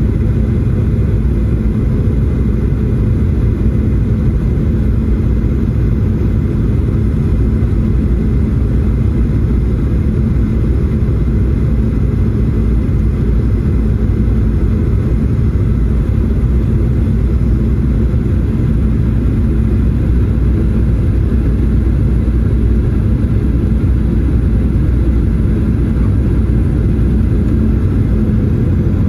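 Steady engine and airflow rumble of a Boeing 737-800 heard from inside the cabin, loud and unchanging, with a faint steady hum under the roar. The sound shifts abruptly near the end.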